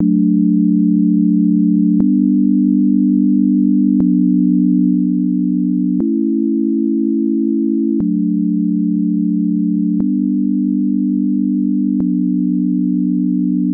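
Serum software synthesizer playing plain, sine-like sustained chords in a low register. The chord changes every two seconds, seven chords in all, with a short click at each change.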